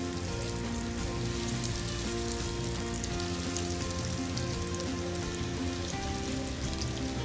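Oil sizzling and crackling steadily as kunafa-coated chicken cutlets deep-fry in a steel pan over a very low flame, with soft background music under it.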